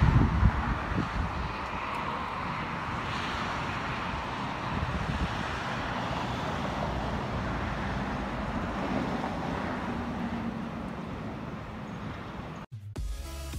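Steady outdoor background noise, an even rumbling hiss like distant traffic. It cuts off suddenly near the end.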